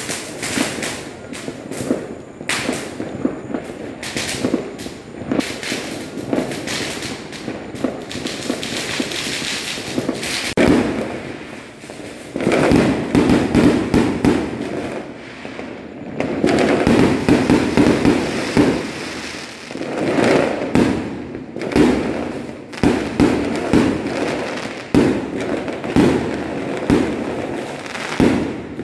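Aerial fireworks bursting in quick succession: a dense run of bangs and crackling that grows louder and thicker about twelve seconds in, then carries on as repeated heavy barrages.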